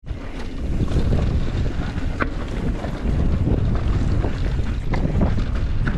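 Wind rushing over the microphone of a camera worn by a mountain biker while riding, a steady loud rumble, with tyres rolling on the dirt trail and a few light clicks and rattles from the bike.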